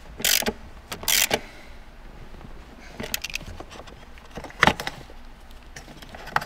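Ratchet wrench clicking in two short bursts as it tightens the nuts holding the shifter base down, followed by scattered sharp clicks and knocks as the shift cable ends are handled.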